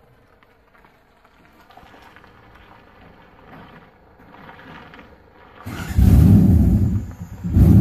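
Toyota UZ-FE V8 engine of a Ford Taunus 20M comes in suddenly and loud almost six seconds in and runs heavily, with a short dip near the end before it picks up again.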